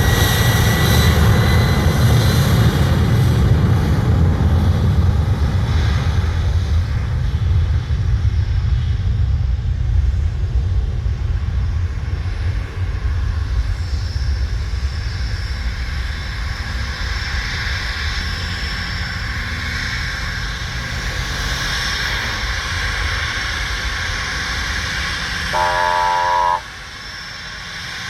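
Twin-engine jet airliner at takeoff power, a deep rumble that slowly fades as the aircraft moves away. Near the end a short horn-like tone sounds, and then the level drops suddenly.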